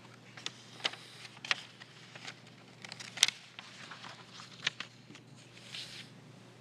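Sheets of paper being handled at a lectern microphone: scattered small clicks and brief rustles, with one sharper tick about three seconds in, over a faint steady low hum.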